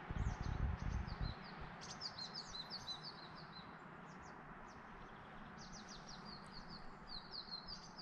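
Small songbirds singing in two quick runs of high, downward-slurred chirps, about two seconds in and again about six seconds in, over a faint steady outdoor hiss. A low rumble sounds in the first second or so.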